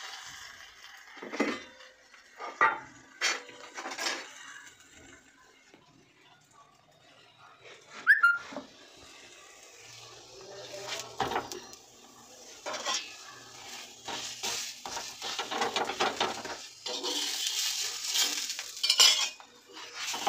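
Kitchen utensil knocking and scraping against a frying pan while an aloo paratha fries in it. A few sharp knocks in the first four seconds and a loud clack about eight seconds in, then a longer stretch of scraping and clatter as the paratha is worked and turned in the pan.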